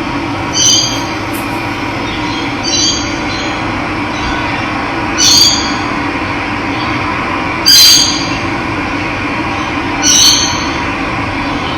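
Steady running water with a bird calling five times, about every two and a half seconds; each call is a short, high note.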